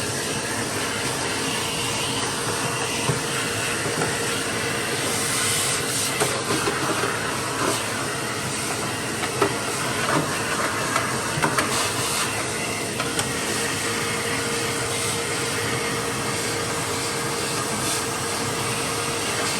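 Vacuum cleaner running steadily with a constant hum, sucking up loosened rust debris from the engine bay, with scattered ticks of grit going up the nozzle in the middle stretch.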